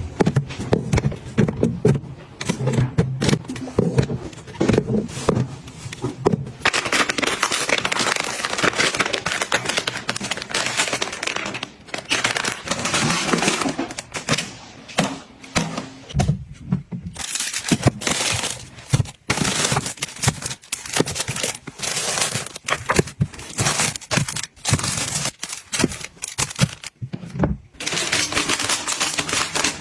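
Makeup items and plastic packaging handled by hand: a long run of clicks, taps and small knocks, with stretches of crinkling and rustling.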